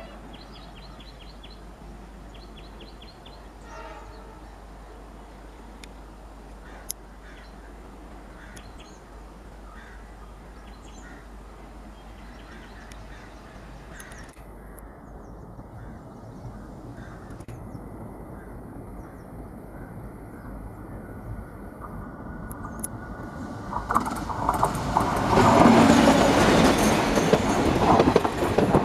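Indian Railways diesel-hauled passenger express approaching and then passing close by. It is faint at first and grows steadily louder over the second half, ending in loud wheel clatter from the coaches going past.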